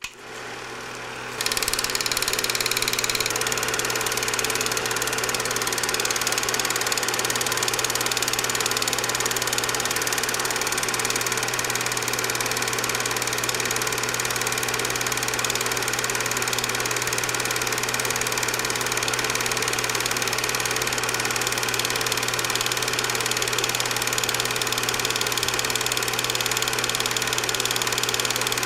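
Steady mechanical hum with hiss, running evenly without change; it comes up to full level about a second and a half in.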